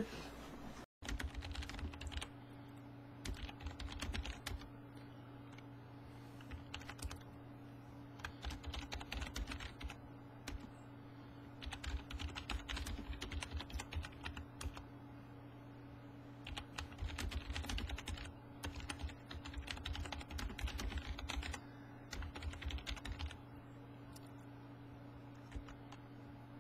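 Carolina wren pecking at mealworms and seed on a feeder tray: quick clicking taps of beak and scattered seed against the tray, in bursts of a second or two with short pauses, over a steady low electrical hum from the camera.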